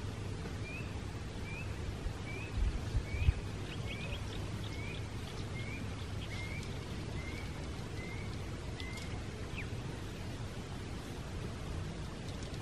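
A bird calling over and over, one short rising note about every 0.7 seconds, stopping about nine seconds in, over a steady low rumble of wind on the microphone. A few low thumps come about three seconds in, the loudest sounds here, and there are scattered light clicks.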